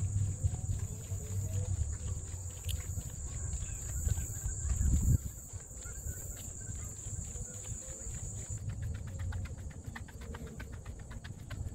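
Steady high-pitched buzz of summer insects that drops away about two-thirds of the way through, over footsteps on a paved path and a low rumble on the microphone that peaks about five seconds in.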